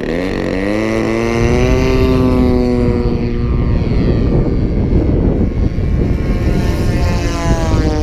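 Large radio-control model airplane's propeller engine in flight. Its pitch rises over the first second or so, then holds steady, and a second engine tone comes in near the end.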